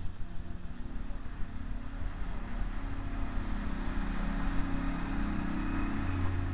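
New Flyer C40LF compressed-natural-gas city bus passing close, its engine running and its tyres hissing on wet pavement. The sound swells as the bus goes by about four to five seconds in, then begins to fade.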